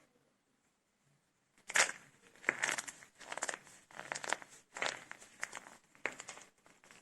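Dry soap cups made with starch being crushed and broken apart by hand. After a quiet opening second and a half comes a run of crisp, crackling crunches that lasts until near the end.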